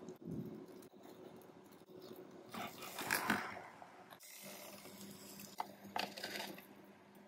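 Handling sounds at a panini press: a noisy clatter about three seconds in, as of the lid being shut over the sandwich, then a few sharp clicks near the end as a spatula slides under the grilled sandwich on the grill plate.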